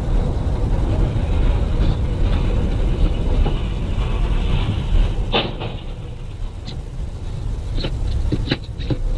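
A heavy vehicle's engine running with a dense low rumble, with a few sharp knocks about five seconds in and again near the end.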